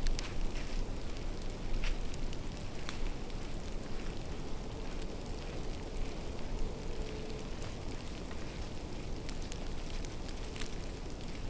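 Wind rumbling on the microphone, with irregular light ticks and crackles scattered through it.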